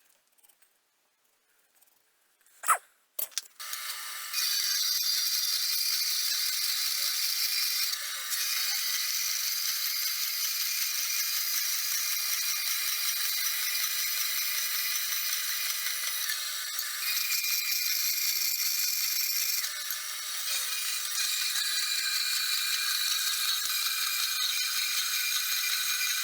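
A sharp knock, then a grinder starts and runs steadily, grinding the forged Damascus steel blade to its profile. Its sound shifts a few times as the work goes on.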